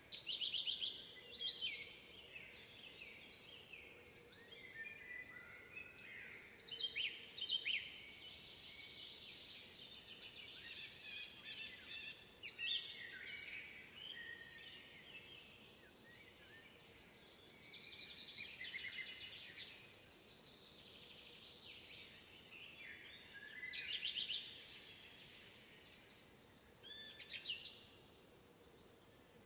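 Songbirds singing in a spring forest: repeated bright phrases and quick trills, coming and going every few seconds over a soft steady background hiss.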